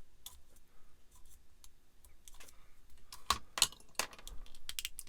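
Small plastic clicks and taps of model-kit parts and thin wiring being handled and pressed into place, with a quick run of clicks near the end.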